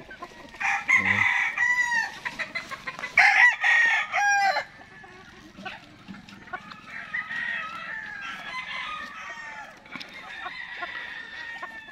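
Gamefowl roosters crowing, two loud crows in the first half, with hens clucking and fainter calls from the flock after.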